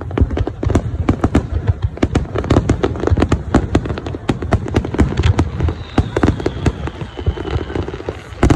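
Fireworks going off in rapid succession: a dense run of sharp pops, several a second, over a low rumble.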